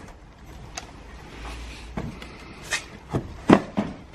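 A handful of separate knocks and clunks, the loudest about three and a half seconds in.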